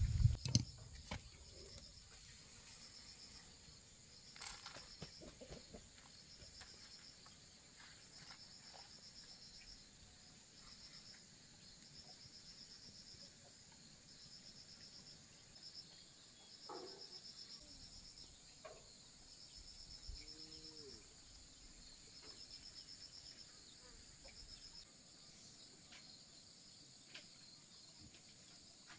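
Insects trilling faintly in short pulsed bursts every second or two over a steady high hiss, with scattered light clicks. About twenty seconds in, a chicken gives a brief low call.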